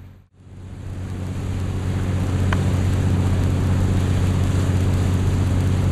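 A boat's engine running steadily, a low hum under a rush of wind and water noise. The sound drops out briefly just after the start and comes back.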